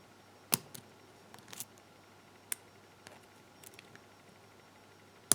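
Lock pick and tension wrench clicking in a pin-tumbler lock during picking: scattered sharp metal clicks, the loudest about half a second in and another right at the end.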